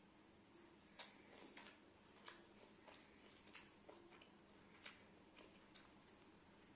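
Faint, scattered wet mouth clicks of a person chewing food, roughly one a second, over quiet room tone with a low steady hum.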